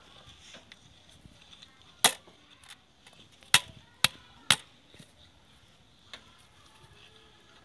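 Hammer striking a round aluminium patch disc held on an iron stake anvil, shaping the patch for a leaking pot. One sharp metallic strike about two seconds in, then three more in quick succession a second and a half later, with a few lighter taps between.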